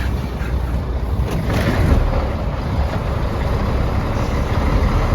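Heavy truck running nearby, a steady low rumble with a dense hiss over it.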